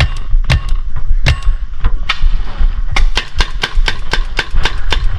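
Paintball marker firing: single pops spaced out at first, then from about three seconds in a rapid string of shots, about four or five a second.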